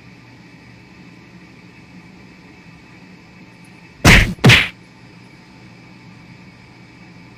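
Two loud thumps about half a second apart, about four seconds in, over a steady low hum.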